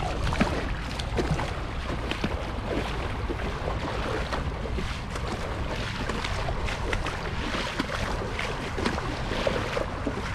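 A kayak being worked through very shallow water: irregular splashing and sloshing with many small knocks and scrapes, over a low rumble of wind on the microphone.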